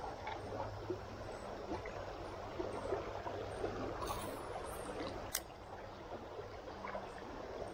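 River water running steadily over a shallow, rippling stretch, with a couple of faint sharp ticks about four and five seconds in and a faint steady low hum underneath.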